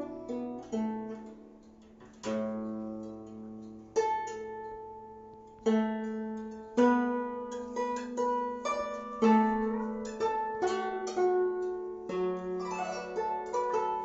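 Guzheng played solo: single plucked notes and short runs that ring and slowly die away, the left hand pressing strings so that a few notes slide in pitch near the end.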